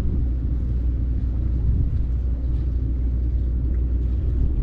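Wind buffeting the microphone on an exposed seawall, a steady low rumble.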